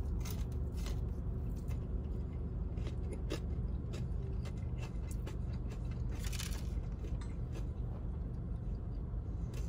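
A person chewing a bite of crispy fried chicken tender, with scattered small crunches and mouth clicks. Under it runs a steady low hum in the car cabin.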